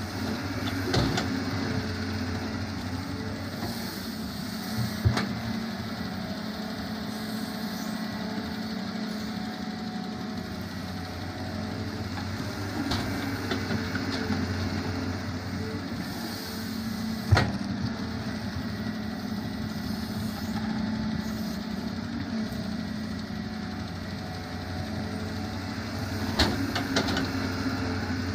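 Doosan 180W wheeled excavator's diesel engine running steadily as it digs and loads. A few sharp knocks, the loudest about five seconds in and again past the middle, as bucketfuls of soil and stones drop into a tractor trolley.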